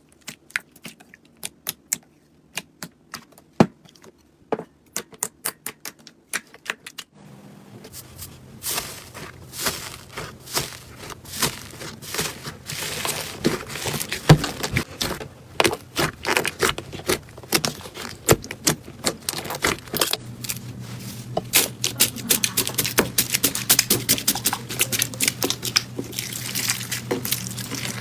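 Slime being pressed and poked, giving sharp sticky clicks and pops, spaced out at first and then, from about seven seconds in, a dense crackling with a faint low hum underneath.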